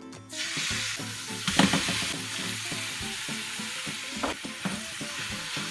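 Hot oil sizzling steadily in a frying pan as minced garlic and then chunks of raw chicken are cooked in it. A utensil clicks against the pan now and then, loudest about one and a half seconds in.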